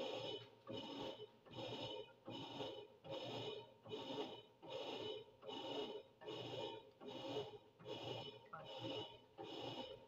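Whirlpool 18 kg top-load washing machine agitating in its wash cycle. The impeller swings back and forth, swishing the water and a load of wet sheets in a steady rhythm, about one stroke every two-thirds of a second.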